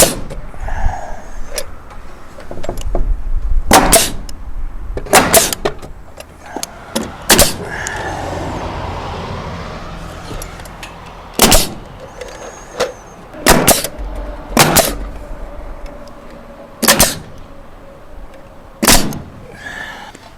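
Nails being driven into wooden soffit boards: single sharp shots come every one to four seconds, some with a short ring after them. A steadier noise swells and fades near the middle.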